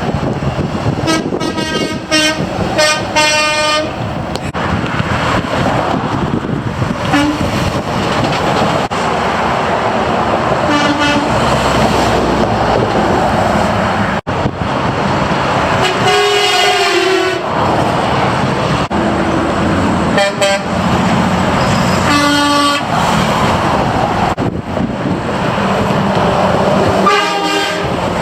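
Semi trucks' air horns blowing in a string of separate blasts over steady road traffic: a few short toots in the first four seconds, then more spaced out, with one longer blast about sixteen seconds in.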